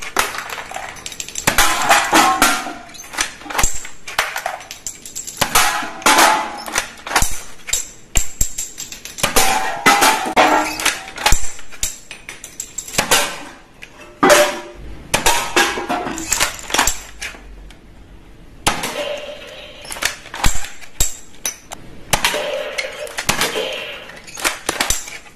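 Toy bolt-action sniper rifle shooting darts, with repeated sharp clicks of the shots, and aluminium cans clanging and clattering as they are hit and knocked down.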